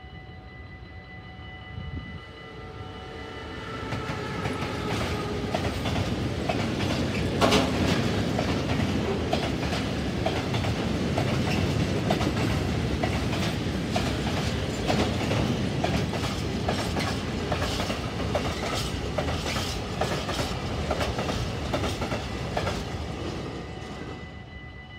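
BLS Cargo Vectron electric locomotive passing with a steady electric whine that drops in pitch as it goes by. A long train of tank wagons follows, its wheels clicking over the rail joints, with one loud bang about seven seconds in, and the sound fades as the last wagons pass.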